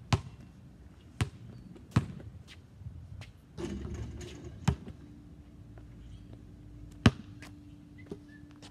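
Basketball bouncing on pavement: single sharp bounces at irregular gaps of about a second, with a shot at the hoop's rim and backboard around the middle. A faint steady hum comes in about halfway.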